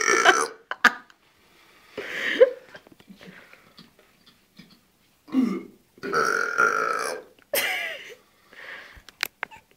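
A person burping again and again: a long burp trails off at the start, a shorter one comes about two seconds in, and the longest, drawn-out burp lasts about a second around six seconds in, followed by a few short ones.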